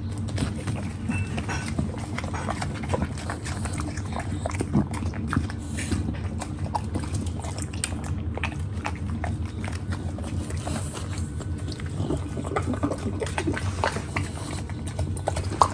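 English bulldog eating apple pieces off the floor: wet chewing and smacking, a continuous run of small irregular clicks and crunches.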